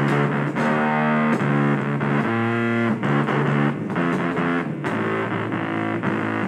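Music: a distorted electric guitar playing sustained notes and chords that change every half second to a second.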